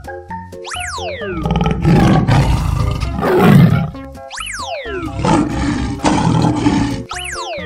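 Two long big-cat roar sound effects, one after the other, each led in by a quick falling whistle-like tone, over a light children's music track.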